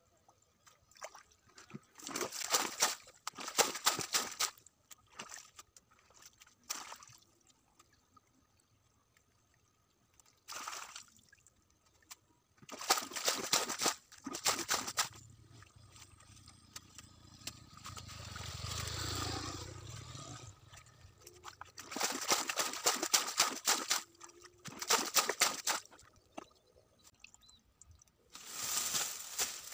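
Hands scooping and sloshing through shallow muddy water in short splashy bursts every few seconds, with a low rumble about two-thirds of the way through.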